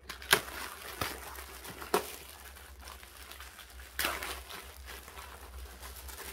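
Plastic packaging crinkling and rustling as it is handled and pulled open around a folded camping table, with about four sharp crackles.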